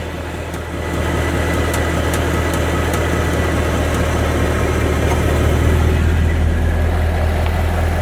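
2014 Ford Mustang GT's 5.0 L V8 idling steadily, with faint light ticks over the engine hum: the unexplained ticking noise the dealership has not found a cause for.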